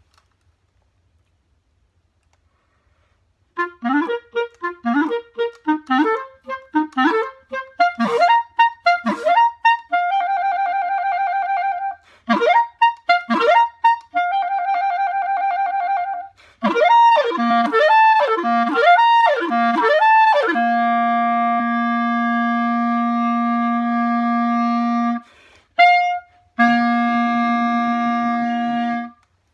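Solo clarinet playing unaccompanied. After a few seconds of silence come runs of quick notes alternating with held notes, then a long low held note, a brief breath, and a last long note.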